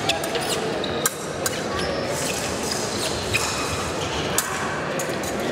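Crowd murmur and voices echoing in a large hall, with scattered sharp metallic clicks and clinks of épée blades meeting.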